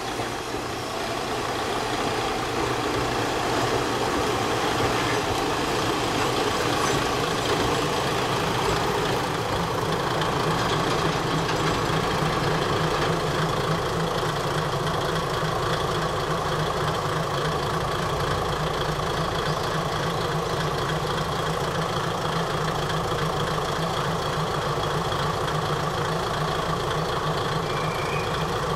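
Two-car Kominato Railway KiHa 200 diesel railcar train pulling in, its engine growing louder over the first few seconds, then idling steadily while it stands at the platform.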